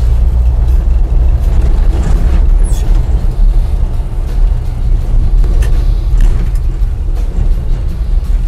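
A 1965 Chevrolet C-10 pickup driving, heard as a loud, fluctuating low rumble of engine and wind buffeting an outside-mounted camera. Scattered clicks and knocks come through as it rolls onto a dirt road.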